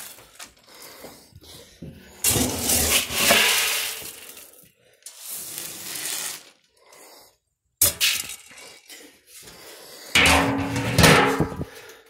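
Feed pellets and shelled corn poured from a metal scoop into a feed trough, a rattling hiss that comes in three main pours.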